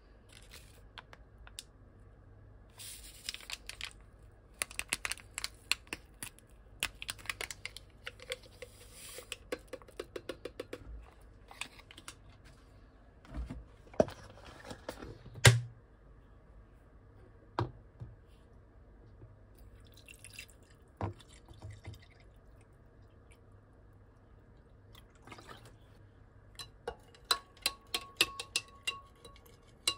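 Powdered berry kombucha drink being made in a glass tumbler: scattered small clicks and taps with a few louder knocks, and liquid sounds. Near the end a spoon stirs and clinks quickly against the glass, with a ringing tone.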